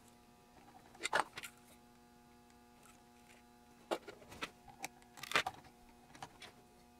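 Small kit circuit board being handled and clamped in a bench vise: a few sharp clicks and taps, the loudest about a second in and near five and a half seconds, over a faint steady hum.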